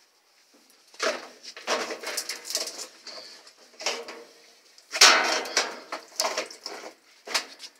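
Irregular clattering and knocking of hard parts being handled while a washing machine is installed, in uneven bursts, the loudest a bang about five seconds in.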